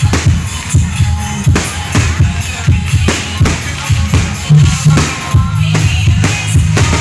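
Loud music with a steady drum beat, about two beats a second, over a heavy bass line.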